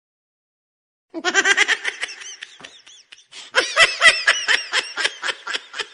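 Laughter sound effect: a burst of laughing starts about a second in and fades, then a longer run of rapid ha-ha pulses follows.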